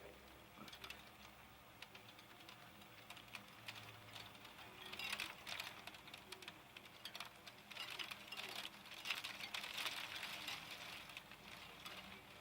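Hailstones striking a hard surface: a rapid, irregular rattle of sharp clicks, growing much denser and louder from about five seconds in before thinning out near the end.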